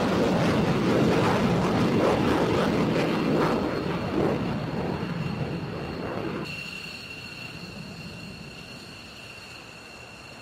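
Twin Pratt & Whitney F100 turbofans of F-15E Strike Eagles on afterburner takeoff: loud jet noise for about six seconds, then it drops off suddenly to a quieter, fading jet sound with a steady high whine.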